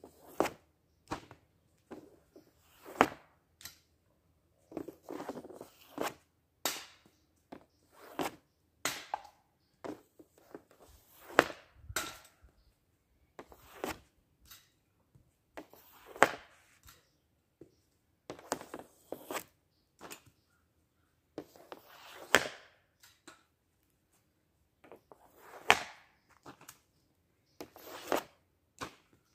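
Ice hockey stick shooting pucks off a plastic shooting pad: a sharp crack of blade on puck about every two to three seconds, with softer clacks and scrapes of the blade on the pad between shots.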